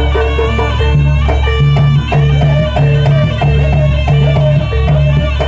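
Javanese jaranan dance accompaniment playing loudly: a steady beat of drums and low repeated notes under a pitched melody.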